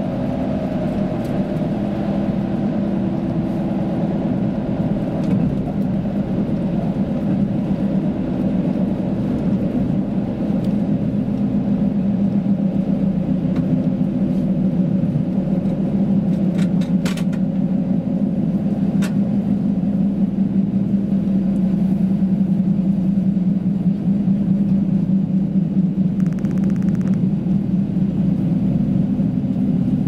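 KiHa 85 series diesel express train running at speed, heard from inside the carriage: a steady rumble of the diesel engines and wheels on the rails, with a few faint clicks a little past the middle.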